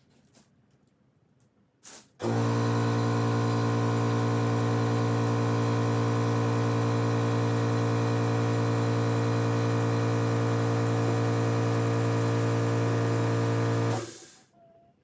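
An electric motor switched on with a click, running at a steady speed with a strong hum for about twelve seconds, then switched off and winding down quickly.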